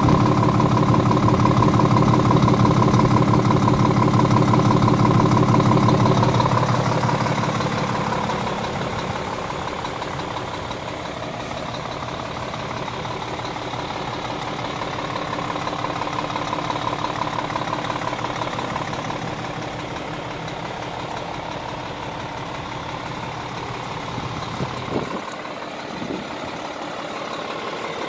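Scania R450 truck's 13-litre inline-six diesel idling steadily, louder for the first six seconds and then quieter and even. A couple of short knocks near the end.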